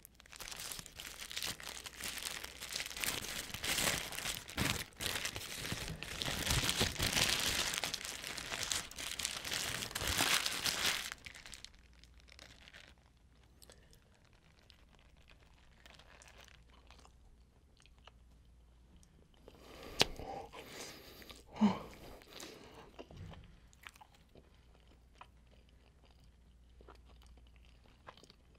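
Paper wrapper of a McDonald's cheeseburger crinkling loudly for about ten seconds as it is unwrapped close to the microphone. Then quieter bites and chewing of the burger, with two sharp mouth sounds about two-thirds of the way through.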